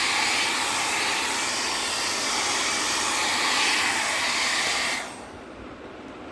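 Hand-held hair dryer blowing with a steady rushing hiss, switched off about five seconds in.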